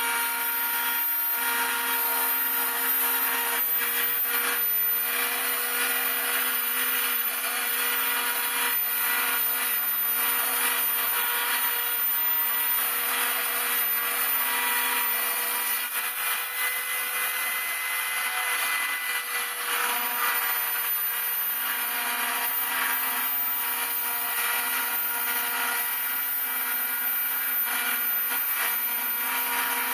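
Homemade CNC router's spindle running steadily with a whine, milling model-aircraft wing ribs, with cutting noise throughout. The sound eases briefly a little past halfway, then carries on.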